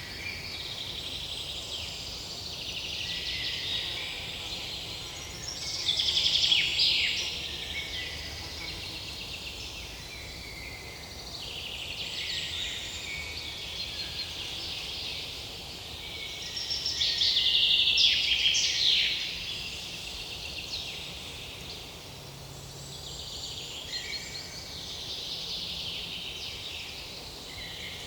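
Several birds chirping and singing, with louder bursts of song about six seconds in and again around seventeen to nineteen seconds.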